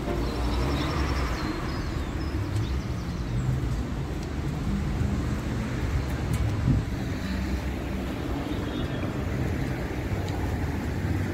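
City street ambience: a steady low rumble of road traffic, heard while walking along the street.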